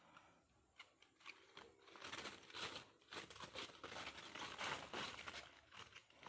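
Dry banana bracts rustling and crackling as bundles are lifted and stacked by hand. A few scattered crackles come first, then a dense run of crinkling from about two seconds in.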